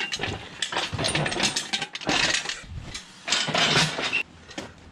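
Steel engine hoist rattling and clanking as it is handled, in about four rough bursts of metal-on-metal clatter and scraping.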